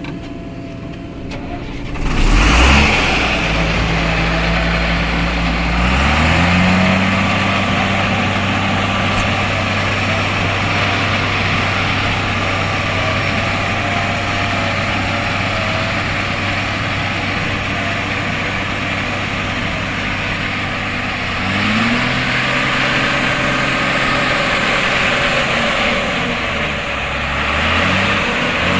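Heavy diesel engine of the backhoe or truck running at work. It gets suddenly louder about two seconds in, then rises in pitch as it revs up about six seconds in and again about twenty-one seconds in, and runs steadily in between.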